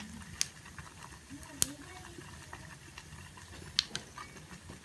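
Low steady hiss of a pot of dal cooking on the stove, broken by three sharp clicks about half a second, a second and a half and nearly four seconds in.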